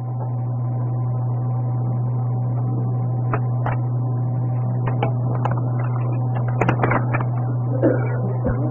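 A PA system's steady low electrical hum under faint room noise, with a few short clicks and knocks, the busiest cluster about seven seconds in.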